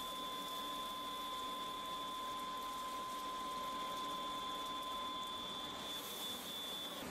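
Milling head of a CNC horizontal boring machine drilling with a carbide drill under flood coolant: a steady two-tone whine over the hiss of coolant spray. The lower tone stops about six seconds in.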